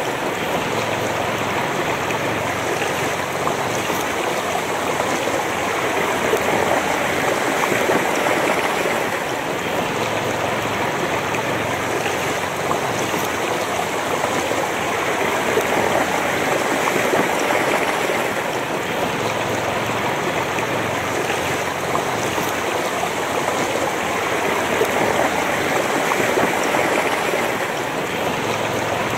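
Shallow, fast river flowing over a stony bed: a steady splashing and babbling of water, swelling gently now and then.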